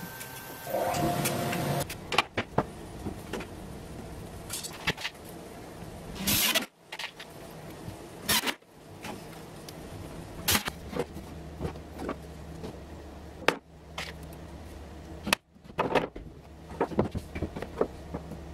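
Workshop assembly sounds: short whirring bursts of a cordless drill driving screws into MDF panels, among knocks and clatter of panels and metal drawer runners being handled. A low steady hum comes in during the second half.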